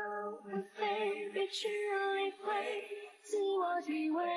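Background song: a voice singing long held notes in phrases with short breaks between them.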